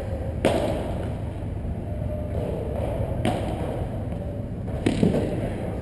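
Sharp knocks of a padel ball: one just after the start, one about three seconds in and a quick double knock near the end, over a steady low hum.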